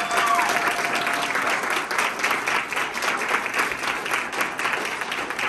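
Audience applause: many people clapping steadily, with a held cheering voice over the first second or so.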